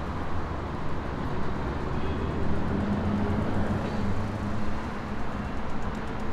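City street traffic: motor vehicles running and passing, with a steady low engine hum. A second engine tone comes in about two and a half seconds in.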